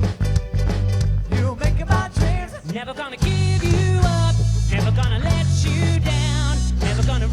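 Ukulele band playing live: strummed ukuleles in a choppy rhythm, then about three seconds in a fuller section comes in with steady bass and sung vocals with vibrato.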